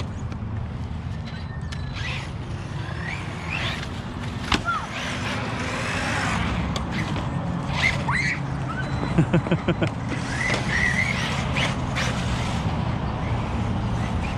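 1/8-scale ARRMA Notorious RC car driving on concrete, its electric motor whining up and down in pitch over a steady low rumble. There are sharp knocks about four and a half and eight seconds in, and a quick rattle of half a dozen hits about nine seconds in.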